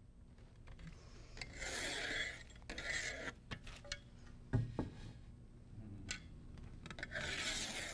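Pencil scratching a line down a painted wall along a level, in three scratchy strokes. Between the strokes come a few light knocks, the firmest about halfway through.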